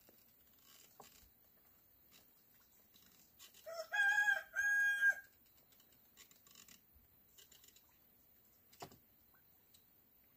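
A rooster crowing once, about four seconds in: a call of about a second and a half that rises at the start and breaks into two held parts. A few faint knocks sound before and after it.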